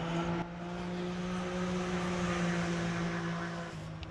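An engine drones steadily, its pitch rising a little through the middle and dropping slightly near the end.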